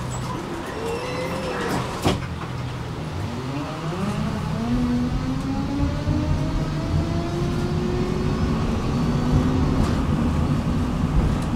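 Tram pulling away, its electric traction motors whining and rising in pitch as it gathers speed over a steady running rumble. There is a sharp click about two seconds in.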